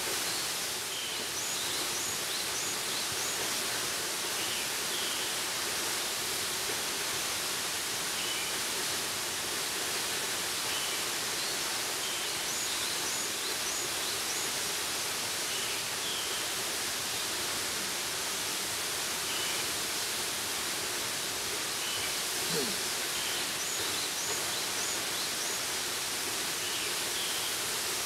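Waterfall plunging from a high cliff into its pool: a steady, unbroken rush of falling water.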